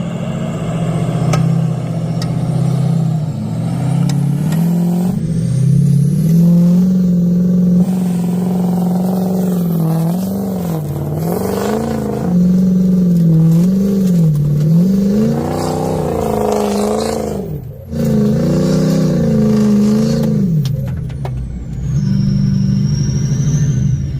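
Diesel pickup truck engine revving up and falling back again and again, the throttle worked in repeated surges with a brief sudden drop about three quarters of the way through.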